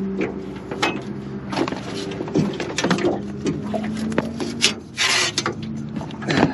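Rubbing, scraping and knocking of gear and the fish being handled in a small boat, with a louder scrape about five seconds in, over a low steady hum.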